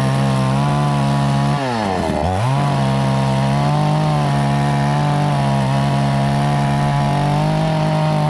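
Chainsaw engine running steadily at high revs. About two seconds in, its pitch dips sharply for under a second, then comes back up to speed.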